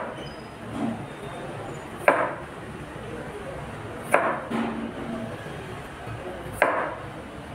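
Chef's knife slicing through a vegetable and striking a plastic cutting board: three sharp chops about two seconds apart.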